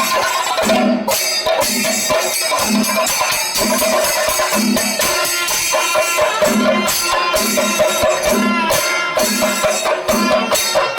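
Percussion-driven music: a steady low drum beat, about three strokes every two seconds, under busy jingling percussion and a held tone.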